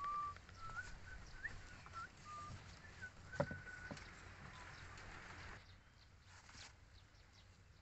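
Short whistled bird notes, some rising, sound in the background through the first four seconds or so. Over them come a few light knocks and clicks of plastic pipe being handled; the sharpest is about three and a half seconds in.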